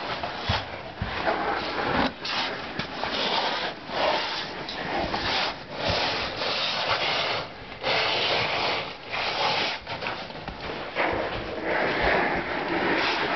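Irregular rubbing and scraping as a person and a handheld camera squeeze through a narrow sandstone slot canyon, in uneven bursts about a second long.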